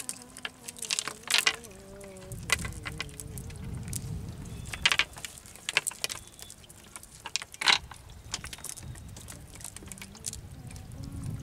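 A cast net being shaken out over a slatted bamboo boat deck: irregular sharp clatters and clicks of the net's sinker weights and small fish dropping onto the slats.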